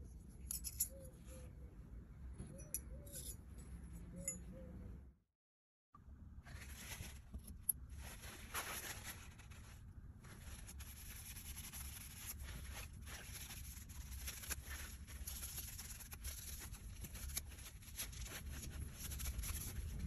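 Faint paper-towel rustling and rubbing as gloved hands wipe thin metal knife handle scales, with small clicks of the metal being handled. The sound breaks off to silence for a moment about five seconds in.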